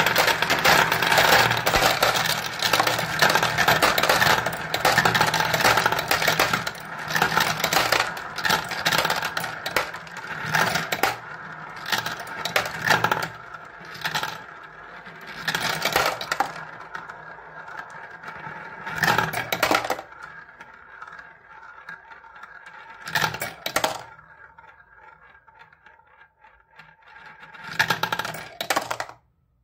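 Glass marbles rolling and clattering around the plastic funnel bowls of a marble run and dropping through its tubes into a tub of marbles. The clatter is thick and continuous at first, thins out into separate bursts as the funnels empty, and stops suddenly near the end.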